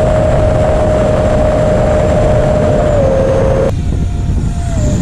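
80 mm 6S electric ducted fan of an FMS Futura model jet in flight, heard from a camera on board: a steady high whine over heavy wind rush. About three seconds in the whine dips slightly in pitch, and a moment later the rush thins out suddenly as the fan slows.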